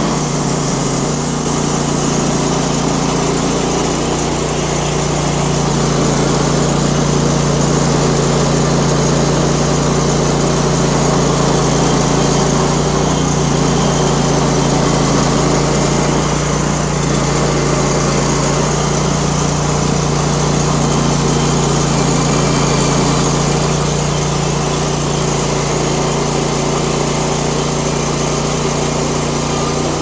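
EZ Boardwalk 40 bandsaw mill's gas engine running steadily as its band blade saws lengthwise through a white oak log.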